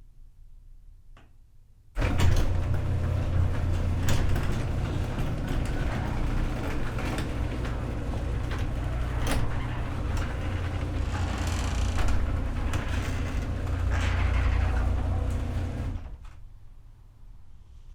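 Electric garage door opener running as the door travels: a steady low motor hum with scattered clicks and rattles. It starts abruptly about two seconds in and dies away near the end.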